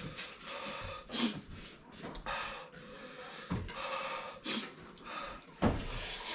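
A man slurping up forkfuls of very spicy instant noodles, with short puffing breaths through pursed lips between mouthfuls from the chilli heat.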